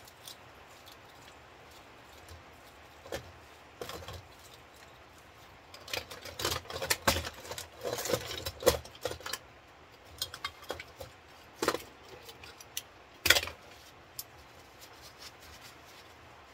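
Small metal scrap parts clinking and clattering as they are handled and dropped on a workbench. A dense run of clatter comes about six to nine seconds in, and the loudest single knock about thirteen seconds in.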